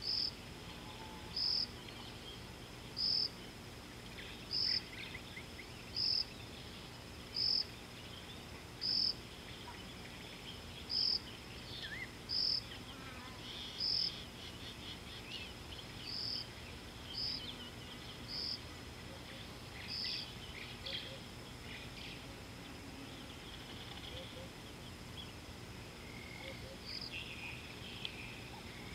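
A cricket or similar insect giving a short high chirp about every second and a half. The chirps thin out after about twenty seconds, with one more near the end. Fainter scattered chirps and a low steady hum lie underneath.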